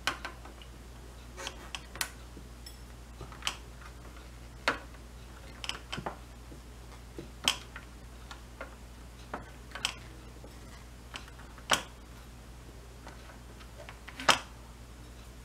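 Wire cutters snipping the excess leads off newly soldered capacitors on an amplifier circuit board: sharp clicks at irregular spacing, roughly one a second, the loudest near the end.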